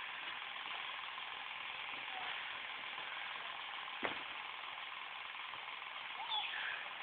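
Steady hiss of room noise, with one sharp knock about four seconds in and a short high squeak near the end.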